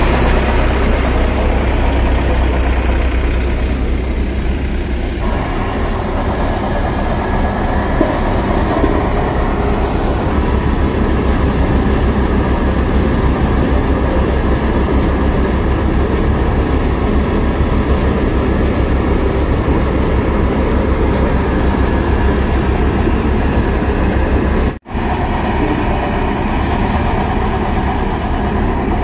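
Paddy threshing machine running loudly and steadily, its drum churning as bundles of rice straw are fed in, with a deep constant hum underneath.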